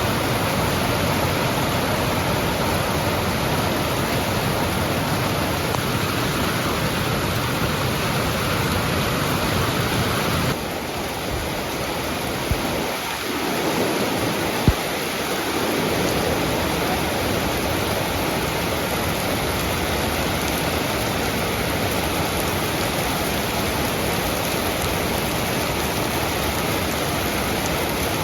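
Steady heavy rain hissing down. Its texture shifts abruptly about ten seconds in, and two brief sharp knocks follow a few seconds later.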